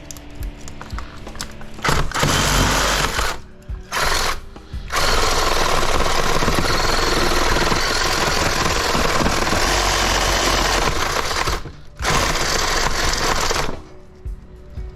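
Reciprocating saw (Sawzall) cutting through the copper windings of an electric motor. It runs in bursts: a short one about two seconds in, another brief one around four seconds, then a long steady cut, a short stop, one more run, and it stops near the end.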